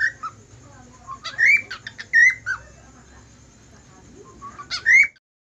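Cockatiel whistling: short, rising whistled chirps in about four loud bursts, stopping about five seconds in.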